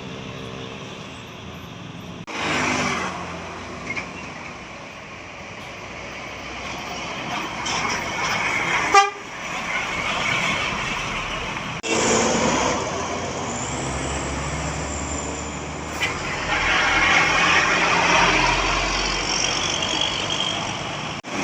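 Large buses passing close by, their engine and road noise swelling and fading, with horn toots from the buses' telolet air horns. The sound jumps abruptly several times between short passes.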